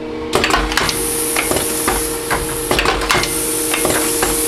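Stick fan assembly machine running its cycle: repeated sharp clacks and knocks from its moving parts over a steady hum, with a high hiss that starts and stops every second or two.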